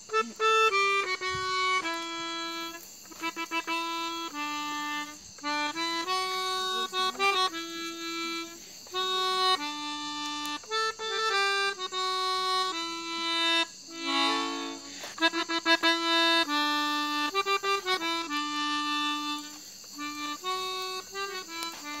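Melodica played by breath through its mouth tube: a melody of held single notes, broken by several quick runs of short notes and a brief cluster of notes about fourteen seconds in.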